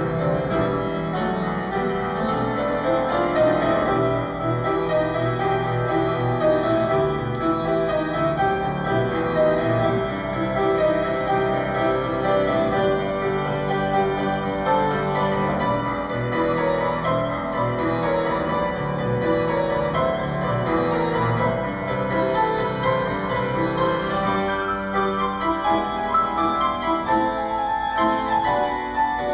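Instrumental piano music.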